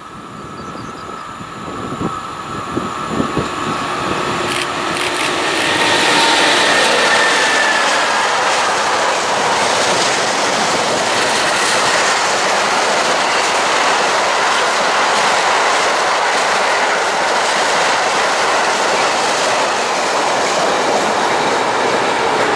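Freight train of cement tank wagons hauled by a BB 27000-series electric locomotive, passing close by. The noise grows over the first six seconds as the locomotive approaches, then the wagons' wheels run past in a steady rolling clatter on the rails.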